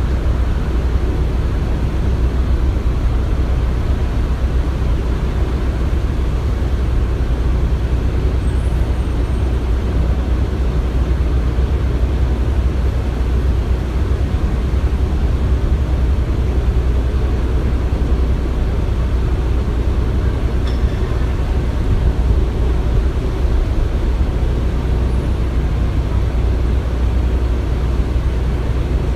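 Construction-site ambience: a steady, loud low rumble of heavy engines running, with no distinct knocks or pauses.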